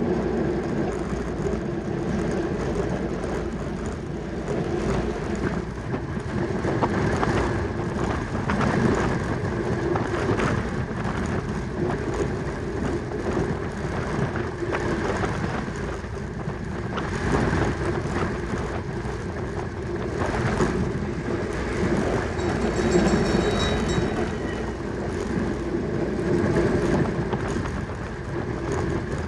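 Steady rush of wind and rolling noise from a track bicycle at race speed, with a constant hum underneath. A brief high ringing tone about 23 seconds in.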